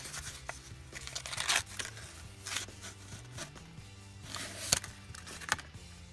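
Paper coin-roll wrapper being torn open and peeled off a stack of pennies, in a few short crinkling rips, over background music.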